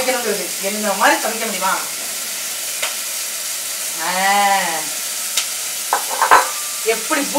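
Raw mutton pieces being handled from a bowl into a steel pressure cooker over a steady hiss, with a few sharp clicks. Short vocal sounds come through, and one drawn-out 'aah' rises and falls about four seconds in.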